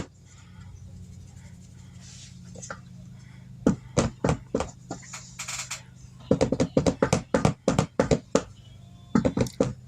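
A spoon knocking rapidly against a dish in several short bursts of taps, as sticky peanut butter is worked off it, over a steady low hum.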